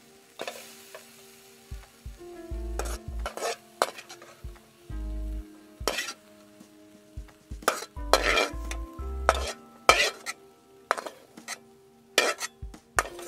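A slotted metal ladle scraping and clanking again and again against a wok and a stainless steel bowl as fried minced pork is scooped out, with the meat sizzling in the hot pan.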